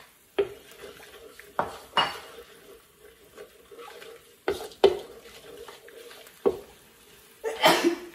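A utensil stirring sauce in a cooking pan, knocking and scraping against the metal about seven times, the loudest clank about five seconds in.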